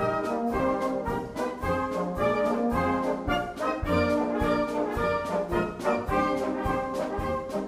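Marching wind band playing on the move: tubas, trumpets, saxophones and French horn over a steady beat from a bass drum and a snare drum.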